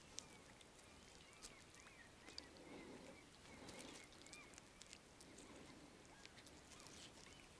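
Near silence: faint distant birds give short rising-and-falling chirps again and again. Small clicks and a soft rustle come from a wet gill net being handled.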